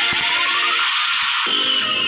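Electronic music playing, with sliding tones rising and falling across it.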